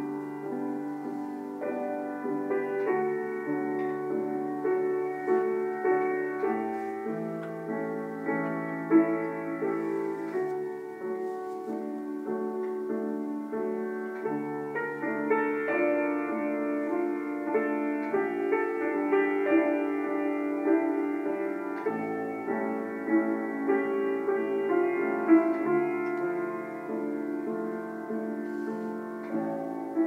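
Instrumental background music on piano or keyboard, slow, with held notes and chords changing about every second or two. No surf is heard under it.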